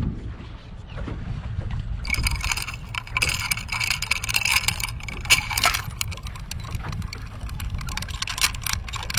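Wind rumbling on the microphone over water lapping at a small boat. About two seconds in, a dense crackle of clicks and hiss sets in and keeps going.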